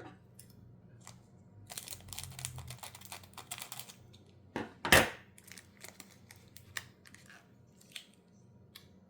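Foil Pokémon booster pack wrapper being worked open by hand: crackling, crinkling and tearing of the foil, with a single loud thump about halfway through.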